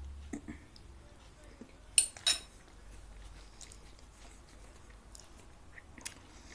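Metal fork clinking twice against a plate about two seconds in, two sharp ringing strikes a fraction of a second apart, with a few fainter clicks of cutlery on the plate during the rest of the meal.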